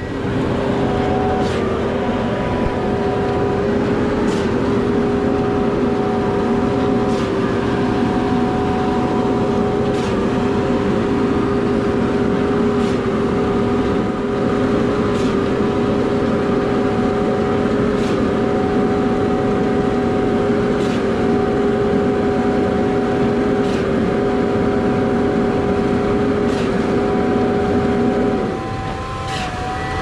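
Truck-mounted concrete boom pump running hard at raised engine speed, a steady whine with a sharp clack about every three seconds as the pump changes stroke. Near the end the whine stops and the sound drops a little.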